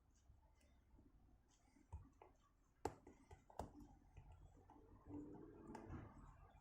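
Faint clicks and scrapes of a hook pick and tension bar working inside the keyway of a vintage Schlage padlock, with a few sharper clicks about two, three and three and a half seconds in.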